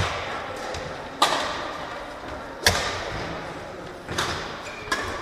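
Badminton rackets striking a shuttlecock in a rally: three sharp smacks about a second and a half apart, each ringing on in the reverberant sports hall, with a fainter knock near the end.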